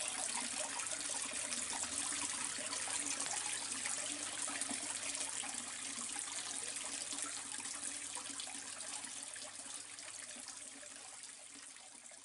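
Water pouring from a pipe outlet into a koi pond, splashing steadily on the surface, gradually fading toward the end.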